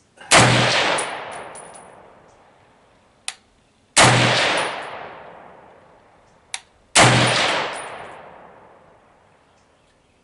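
Three single shots from an M14-pattern 7.62x51mm semi-automatic rifle firing ball ammunition, about three and a half and then three seconds apart. Each shot is a sharp crack followed by an echo that dies away over a couple of seconds. A short, sharp click comes shortly before the second and the third shot.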